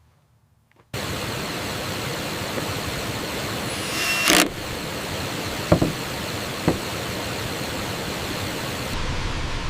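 Steady rushing noise of a waterfall, cutting in suddenly after a second of near silence. It swells briefly around four seconds in, and two sharp knocks come a second apart about two thirds of the way through.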